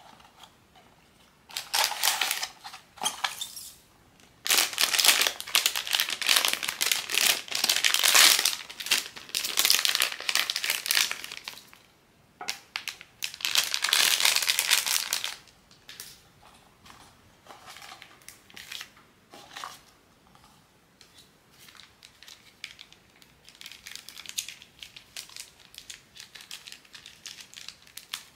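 Blind-box packaging crinkling and rustling as a figure is unwrapped, in long loud bursts of several seconds each through the first half, then softer scattered crackles and small taps.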